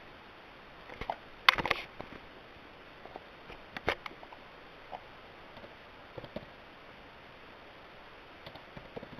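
A few scattered short clicks and knocks over faint steady hiss, the loudest cluster about one and a half seconds in and another near four seconds, like small objects being handled.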